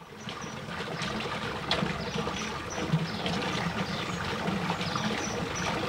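Water trickling steadily, fading in at the start, with short high chirps and small clicks scattered through it.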